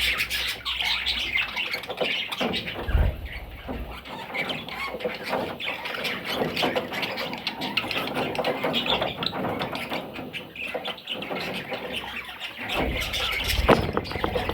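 Pet parrots chattering and squawking without a break, with a few low bumps about three seconds in and near the end.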